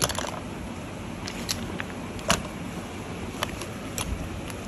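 Small makeup items being handled and put down: a handful of light, separate clicks and taps of plastic brushes, cases and trays, the loudest about halfway through, over a steady hiss.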